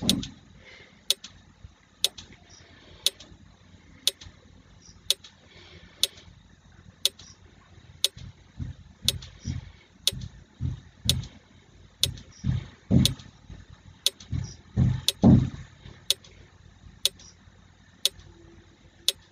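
Countdown timer clock ticking steadily, one tick a second, over low, irregular muffled thumps.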